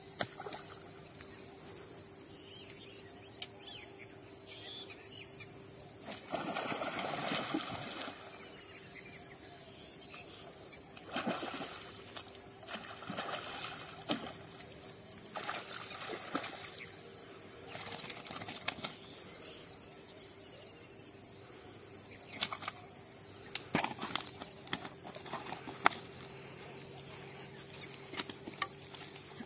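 Steady high chirring of crickets and other insects, with scattered short rustles and clicks, thickest about six to eight seconds in and again toward the end.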